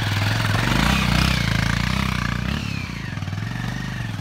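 Motorcycle engine running hard under load as it climbs a steep dirt trail, growing fainter as the bike pulls away uphill.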